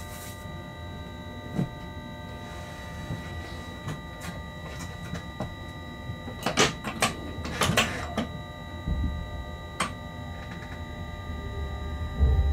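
Inside the cab of a Bombardier TRAXX electric locomotive: a steady electrical whine and hum with a scatter of sharp clicks and clacks from the cab equipment and controls. A low rumble sets in about nine seconds in and grows near the end as the locomotive starts to move.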